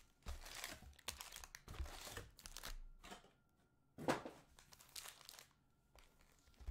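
Foil wrappers of baseball card packs crinkling as they are handled and set down in stacks: irregular rustles, a pause about three seconds in, then a sharper crinkle at about four seconds.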